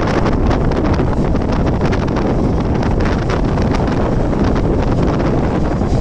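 Wind buffeting the microphone, held out at the open door of a moving Mumbai suburban electric train, over the train's running noise.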